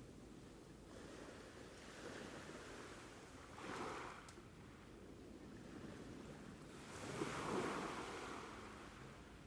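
Ocean waves washing on a shore: a steady rush of surf with two louder swells breaking, about four seconds in and again near the end.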